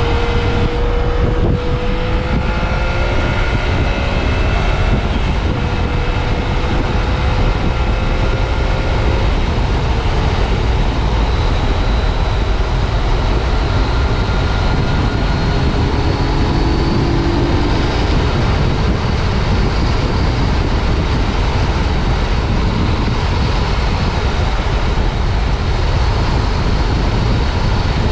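2015 Yamaha FJ-09 Tracer's 847 cc inline-three engine running while riding, its note climbing slowly over the first several seconds, under heavy wind rush on a helmet-mounted microphone.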